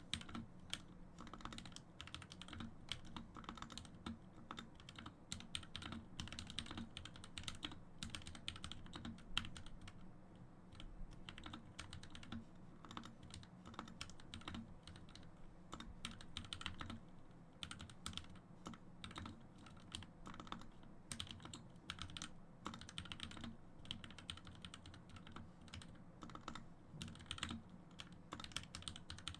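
Steady typing on a Royal Kludge RK61 mechanical keyboard, keystrokes clacking in a quick irregular stream. The switches are lubed, the stabilizers clipped and the case foamed, with HyperX Pudding PBT keycaps.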